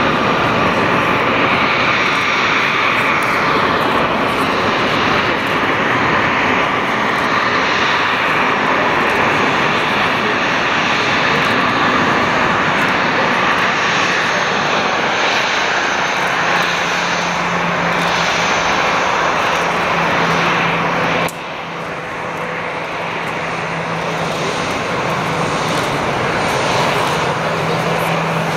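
Rolls-Royce BR710 jet engines of a Bombardier Global 5000 running at taxi power: a steady loud jet rush with a whine. A low steady hum joins about halfway through. A little past two-thirds of the way in the level drops suddenly, then slowly builds again.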